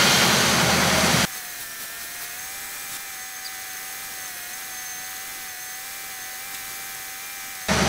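Water from a garden hose hissing over the hot radiator and front of the engine while the 1966 Chevy Biscayne's 396 big-block V8 idles, to cool the overheated, steaming engine. The sound cuts off abruptly about a second in and leaves only a faint steady whine until just before the end.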